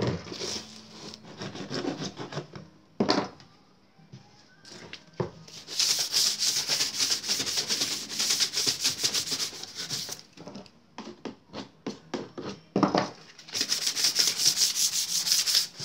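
Sandpaper rubbed quickly back and forth over a white PVC pipe, in two long runs of fast rasping strokes with scattered strokes between them. A couple of sharp knocks in the first few seconds.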